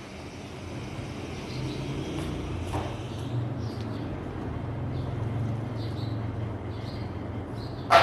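Steady low motor hum over background noise, with a faint knock about three seconds in.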